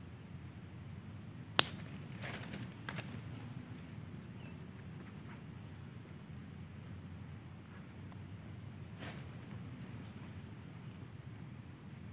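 Steady high-pitched insect chorus of crickets or similar insects. A sharp click about a second and a half in is the loudest sound, followed by a few fainter clicks and one more near the end.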